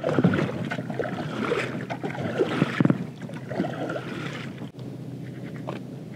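Water lapping and splashing against a fishing kayak's hull in small, irregular splashes.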